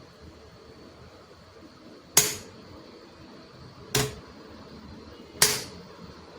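Three sharp knocks, about a second and a half to two seconds apart, each with a brief ring, over a faint steady high tone.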